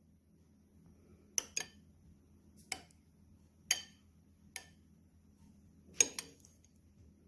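Metal spoon clinking against a ceramic bowl while scooping soft tofu pudding: about seven short, sharp clinks spread over five seconds, some in quick pairs.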